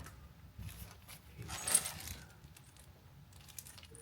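Small metal tools and coax connector parts handled on a work surface: scattered light clicks and clinks, with a short scraping rustle about one and a half seconds in.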